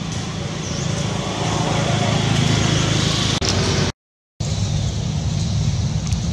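A steady low engine rumble, a little louder two to three seconds in, cutting out briefly about four seconds in.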